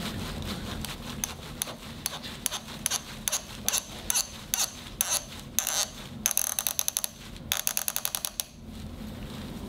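Mallet tapping a femoral ligament-tape anchor's inserter to knock the anchor into its drilled hole in bone: a series of sharp light taps, two or three a second. Near the end come two quick runs of rapid clicking.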